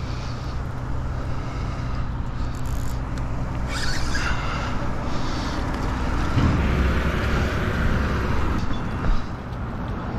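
Steady hum of road traffic, with a vehicle passing, loudest in the second half, and a brief rushing noise about four seconds in.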